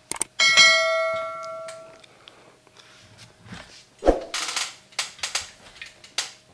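Metal clang from the Cougar Armor gaming chair's steel-framed backrest being fitted onto the seat, ringing with a bell-like tone that fades over about a second and a half. About four seconds in there is a heavy knock, then several clicks and scrapes as the backrest is worked into place.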